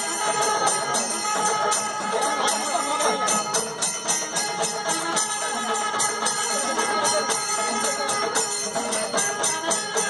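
Music with jingling bells and fast, sharp percussion strikes over sustained tones, running steadily.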